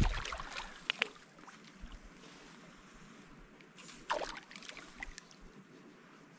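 Trout splashing in the shallows at the water's edge: a splash at the start, then a few smaller splashes about a second and about four seconds in.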